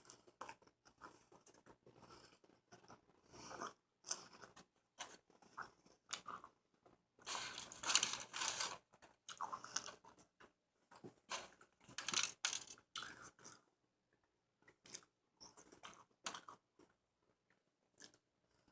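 Close-miked biting and crunchy chewing of a burger, in irregular clusters of crackly noises with short pauses between them.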